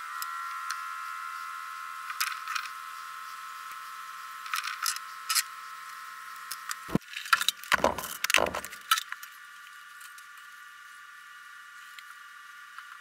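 Handling noise of thin leather lacing being worked by hand: scattered light clicks and rustles, with a cluster of louder knocks and bumps about seven to nine seconds in. A steady high whine runs underneath.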